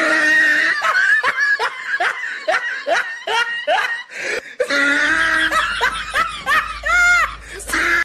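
A person laughing: a run of short, pitched laughs about two or three a second, then more laughing with a drawn-out high note near the end.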